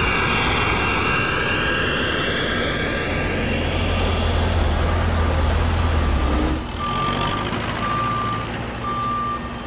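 Jet airliner passing close along the runway, its engine noise sweeping as it goes by. Then a tractor's low engine rumble, and near the end a vehicle's backup alarm beeping three times, about once a second.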